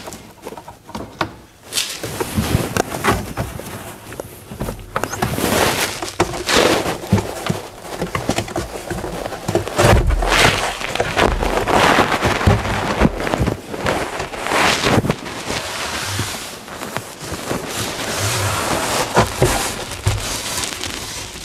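Irregular rustling, scraping and knocking as a fabric-covered cardboard panel is handled and pressed against the adhesive-sprayed inside wall of a wooden steamer trunk.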